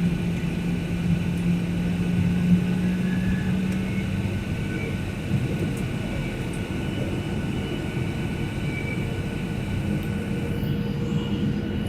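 Steady engine and airflow noise heard inside the cabin of an airliner in flight on approach. A low hum underneath fades out about four seconds in.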